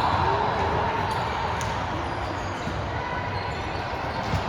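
Reverberant gym ambience at a volleyball match: steady background noise with faint chatter, a few light ball thumps and a brief shoe squeak.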